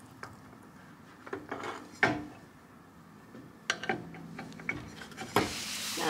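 Metal clinks and scrapes as a replacement gear and sprocket assembly is worked down into a garage door opener's steel chassis until it seats. A handful of short knocks, the loudest about two seconds in.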